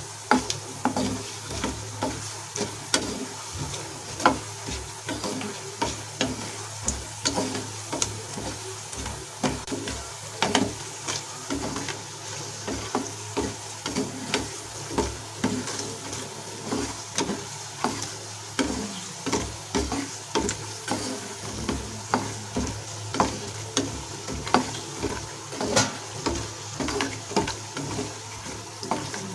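Wooden spatula stirring fox nuts (phool makhana) as they roast in hot ghee in a non-stick pan. The spatula scrapes and knocks against the pan about once a second, over a steady faint sizzle of the frying.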